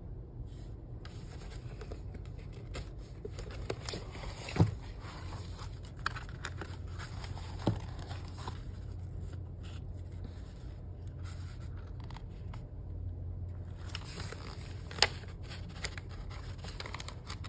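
Needle and thread being worked through a signature of thick book pages along the journal's crease: light scraping and rustling of paper, with three sharp taps.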